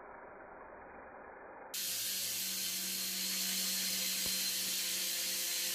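Small toy quadcopter drone with a ring-shaped propeller guard flying: its motors and propellers make a steady hiss with a low hum. The sound gets abruptly louder about two seconds in.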